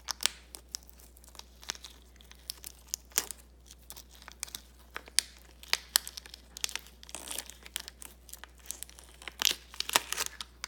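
Plastic toy packaging crinkling and tearing as it is handled and opened, in irregular sharp crackles.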